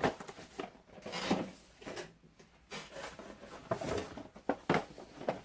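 Boxed action figures being handled and pulled from a cardboard shipping box: irregular rubbing, scraping and light knocks of cardboard and plastic packaging.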